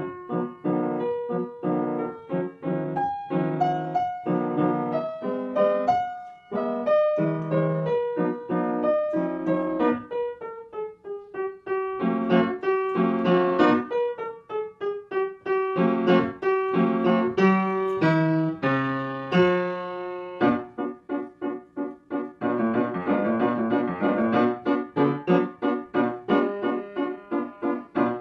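Piano music: a melody over chords, turning to faster repeated chords about two-thirds of the way through.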